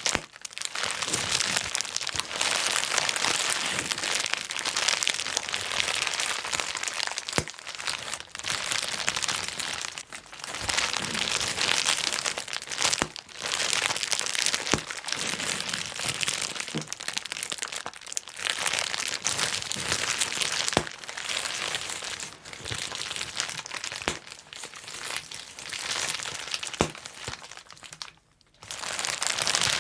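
Plastic bubble wrap being squeezed and twisted: a dense run of crinkling full of sharp pops, broken by short pauses every few seconds and one brief gap near the end.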